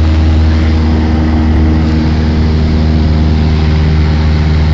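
Cessna 172's piston engine and propeller droning steadily in flight, a loud even hum with several steady tones stacked above it.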